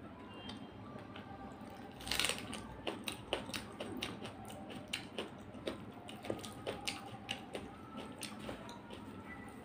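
Close-up eating sounds: chewing with many short wet mouth clicks and smacks, while fingers mix rice and chicken curry on a brass plate. A short hissing burst about two seconds in is the loudest moment.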